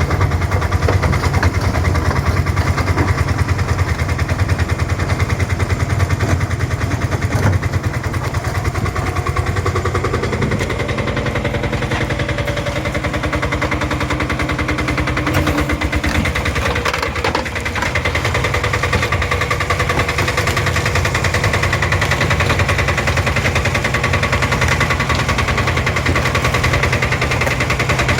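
Engine of a steel-tracked crawler dumper running steadily with a fast, even chugging beat.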